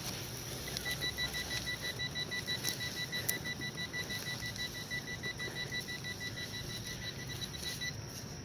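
Metal detector sounding off over a buried target: a high electronic beep repeating rapidly, about four beeps a second, which starts under a second in and stops near the end. A couple of sharp ticks come about three seconds in.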